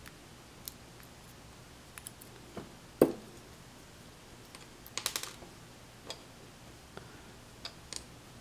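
Small metallic clicks and taps from gutting a lock cylinder: tweezers working in the core, the cylinder handled and pins set into a pin tray. One louder knock about three seconds in and a quick flurry of clicks about two seconds later, with scattered light ticks around them.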